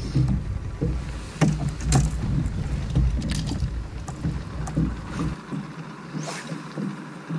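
Wind rumbling on the microphone and choppy water lapping against a bass boat's hull, with scattered sharp clicks and knocks. The low rumble drops away about two-thirds of the way through.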